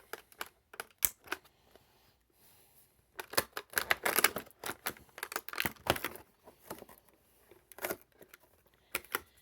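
A cardboard advent calendar compartment and its small packaging being torn open and handled: a few sharp clicks and taps, then about three seconds of tearing and crinkling, and a few more clicks near the end.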